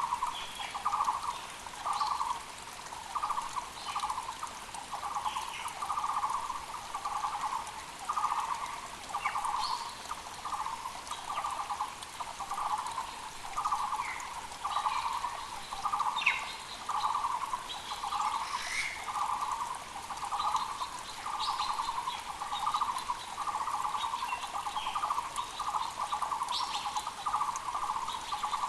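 Taiwan barbet (Muller's barbet) calling, one loud low note repeated about once a second without a break. Other small birds chirp higher and more softly over the steady rush of a mountain creek.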